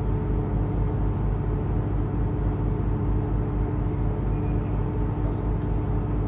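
Excursion boat's engine running steadily under way: a low, even throb with a steady hum.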